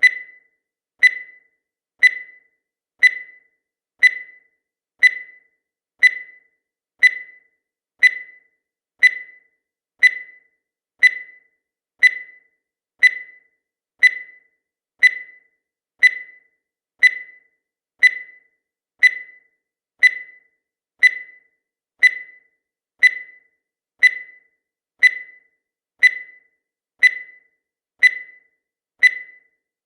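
Countdown timer sound effect: one short, sharp tick each second, steady and evenly spaced, with silence in between.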